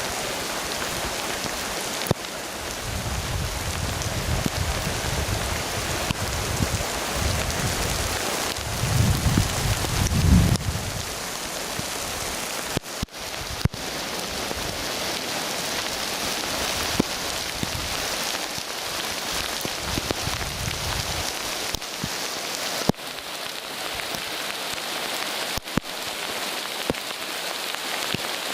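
Steady rain falling and pattering on surfaces, with scattered drip ticks. Low rumbling surges come and go, strongest about a third of the way in and again just past the middle, and the sound breaks off briefly a couple of times.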